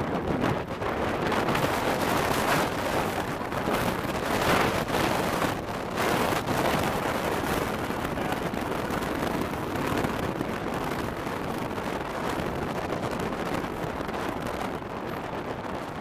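Wind buffeting the microphone: a loud, steady rushing noise with gusts that swell and ease.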